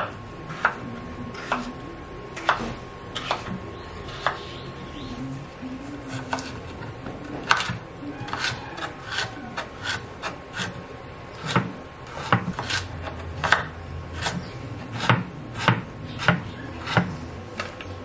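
Chef's knife chopping firm raw potato and carrot on a wooden cutting board: irregular sharp knocks of the blade striking the board, coming more often in the second half.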